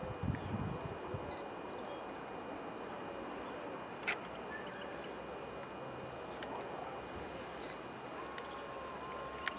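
Outdoor ambience beside a railway line: a steady hiss with faint, short bird chirps and a single sharp click about four seconds in.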